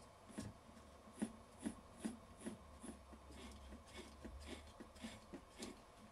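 Faint, irregular clicks and light rubbing of hand tools and small parts being handled, about two or three clicks a second, over a low steady hum.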